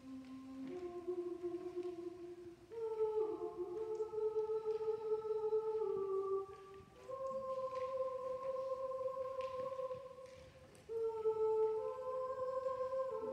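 Mixed choir singing slow, long-held chords that step to new pitches every few seconds, easing off twice between phrases before swelling again.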